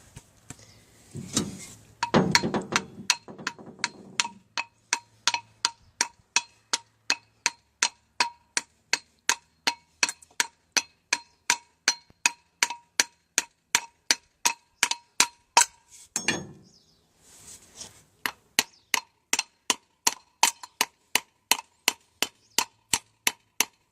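Hammer tapping repeatedly on metal, about two to three light strikes a second with a ringing note, driving a new tailshaft centre bearing home on the shaft. The tapping stops for about two seconds past the middle, then goes on at the same pace.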